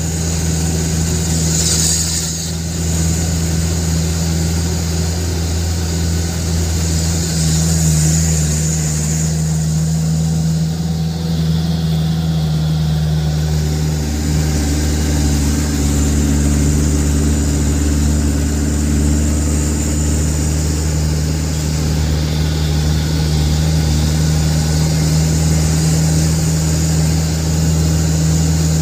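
Truck engine running steadily under way, heard from inside the cab: a steady low drone that shifts slightly in pitch about fourteen seconds in.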